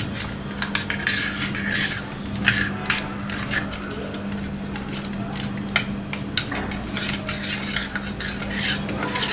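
A spoon stirring yeast, sugar and warm water in a small vessel, clinking and scraping against its sides in quick irregular strokes.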